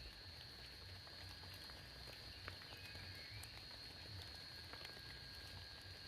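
Faint forest ambience: a steady high-pitched animal chorus with a soft low rumble and a few scattered faint ticks.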